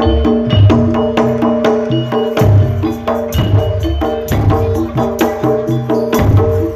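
Javanese jaranan ensemble playing: a kendang hand drum beats a quick, busy rhythm of deep thumps and sharp slaps over held melodic notes.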